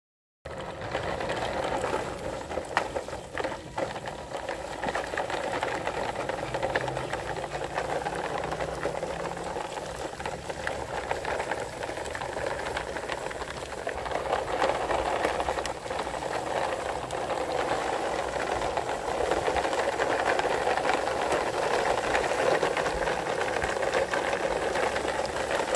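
Plastic toy trailer trucks rolling over concrete and grass, their plastic wheels and the small toys loaded in the trailers rattling in a steady clatter that starts about half a second in.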